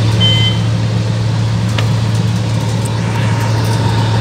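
Asphalt milling machine and dump truck working together: a steady, loud low drone of heavy diesel machinery as the milled asphalt is conveyed into the truck. A brief high tone sounds just after the start.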